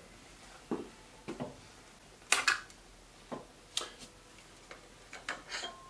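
A 20-bore Beretta Silver Pigeon over-and-under shotgun being taken apart by hand: a string of about eight separate metal-and-wood clicks and clacks, the sharpest a little over two seconds in.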